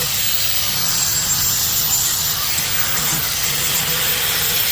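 Steady, loud hissing noise with no breaks.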